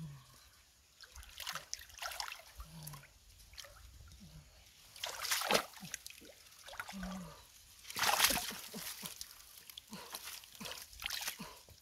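Hands splashing and sloshing in a shallow muddy pool while groping for catfish, in irregular bursts of splashing, the loudest about five and eight seconds in.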